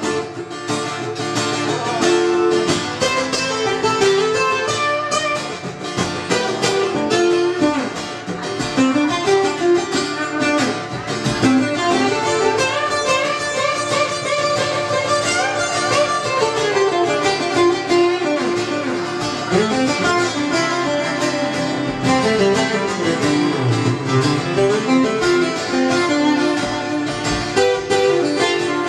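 Two acoustic guitars playing an instrumental passage, a picked melody line moving over the accompaniment without singing.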